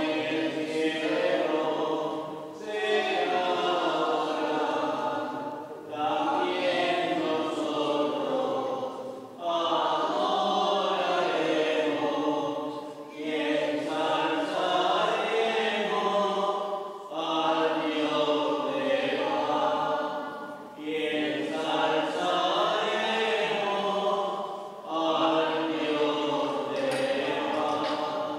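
A choir singing a slow, chant-like hymn without accompaniment, in phrases of about four seconds with short breaks for breath.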